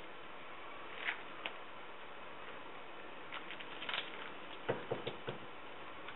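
Paintbrush stippling resin into fiberglass cloth in a boat deck mold: scattered short taps and clicks, a couple early on and two small clusters in the second half, over a steady background hiss.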